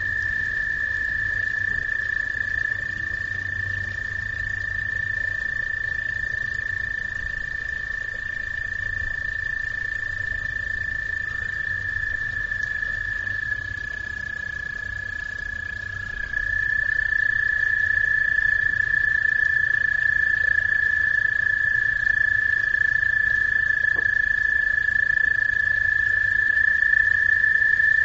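Frogs calling in a continuous chorus that merges into one steady high-pitched drone. The drone holds the same pitch throughout and grows louder a little past halfway.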